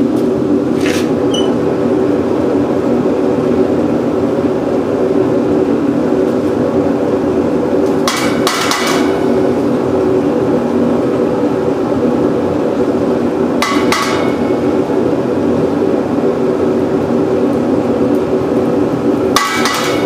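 Homemade forced-air propane casting furnace running steadily, its microwave-oven blower and burner giving a constant hum. Four sharp metal clanks ring out over it, about a second in and then roughly every five or six seconds, as the steel skimming tool knocks against metal while the dross is skimmed off the molten aluminium.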